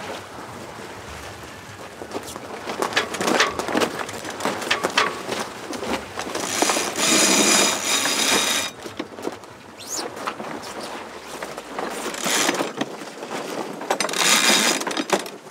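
Sailboat cockpit sheet winch clicking in several bursts of rapid ratcheting as a sheet is hauled in during a tack, over wind and water noise.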